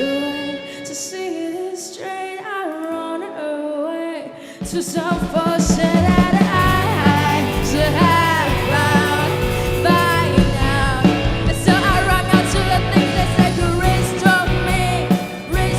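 Rock band playing live with a singer. For the first four and a half seconds the drums and bass drop out, leaving voice and guitar; then the full band with drums and bass comes back in under the vocal.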